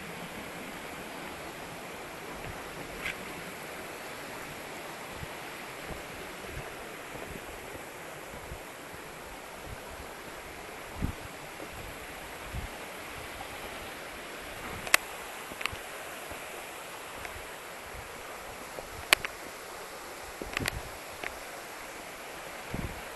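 Waterfall rushing steadily, with a few short sharp clicks in the second half.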